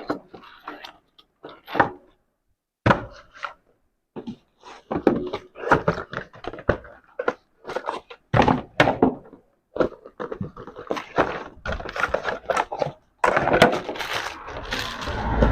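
Irregular thunks, knocks and scrapes of hardware and cables being handled and set down on a hard surface.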